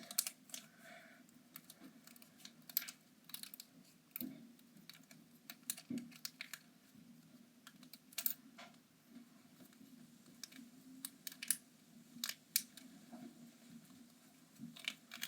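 Fidget toy handled in the hands, giving faint, irregular light clicks and taps scattered throughout.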